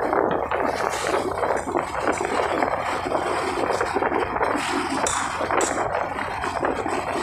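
Steady wind rush and road noise while riding a motorcycle along a concrete road, the wind buffeting the microphone.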